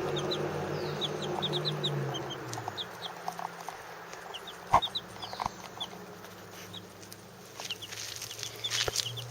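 About two-week-old chicks peeping: scattered short, high cheeps throughout. A steady low hum fades out after about two and a half seconds and returns near the end, and a single sharp knock comes about five seconds in.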